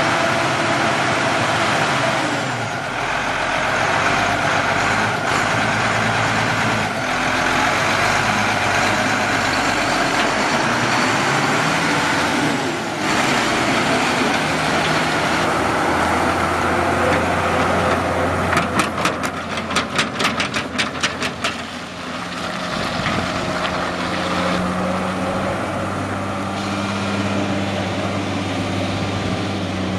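A Cummins ISC 8.3-litre diesel engine in a 1995 Ford LT8000 mixer truck, running. A rapid run of sharp clicks, about five a second, lasts about three seconds just past the middle, and a steadier, deeper engine hum sets in for the second half.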